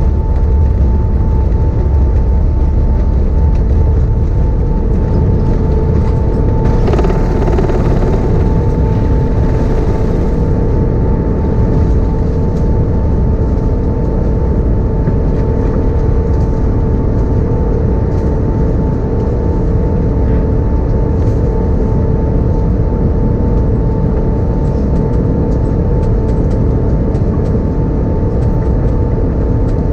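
Cabin noise of an Airbus A380 at takeoff and climb-out: the four engines' steady roar, with a steady whine on top. A brief rise in hiss comes about seven seconds in.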